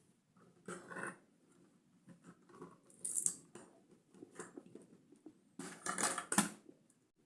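Irregular rustles and light clicks of plastic LEGO parts being handled and moved, with a louder cluster of clatter about six seconds in.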